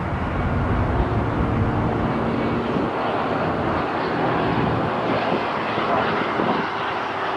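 Boeing 777 twin-jet airliner's engines running at high power as it rolls along the runway: a steady loud rush of jet noise with a faint hum of engine tones underneath.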